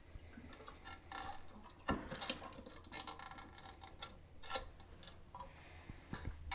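A toilet flapper being pulled off its mounts in the tank and handled: scattered light clicks and knocks, the loudest about two seconds in.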